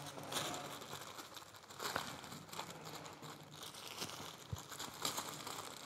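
Faint rustling and crinkling of soft packaging wrap being handled, with a few light clicks.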